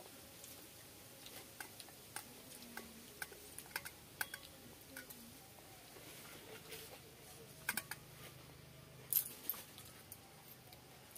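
Hand-eating sounds: scattered small clicks and taps as fingers mix water-soaked rice in steel bowls, with a couple of sharper metallic clinks about two thirds of the way in.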